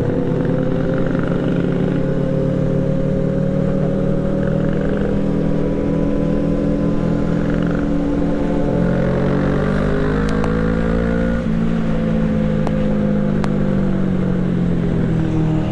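Kawasaki Z650 parallel-twin engine running under way, heard from the rider's seat, with other motorcycle engines around it. Its pitch rises from about eight seconds in as it accelerates, then falls away after about eleven seconds.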